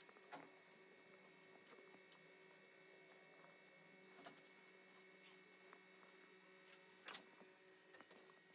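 Near silence: a faint steady hum with a few light clicks and rustles from handling corrugated paper wrapping and metal parts, the loudest about seven seconds in.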